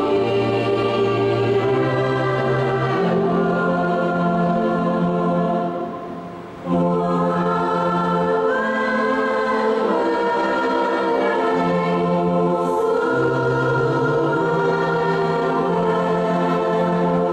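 A group of voices singing a hymn together in long held notes, with a short pause between phrases about six seconds in.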